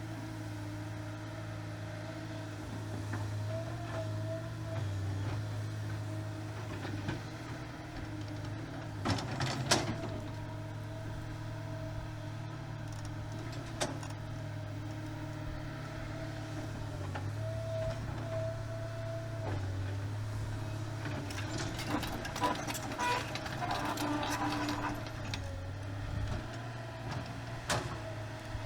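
Kobelco SK250 LC excavator's diesel engine running steadily as the machine travels, with metal clanks and rattles: a sharp one about a third of the way in, a cluster about three quarters of the way in, and another near the end.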